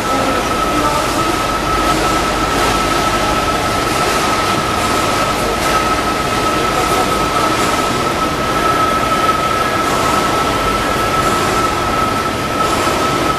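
Heinrichsglück H50 welding positioner's electric drive running as its table slowly turns: a steady high whine over continuous mechanical noise.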